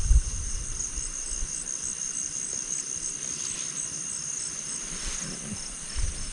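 Crickets and other night insects trilling steadily, one high chirp pulsing about three times a second. Low thuds of footsteps on the path come at the start and again near the end.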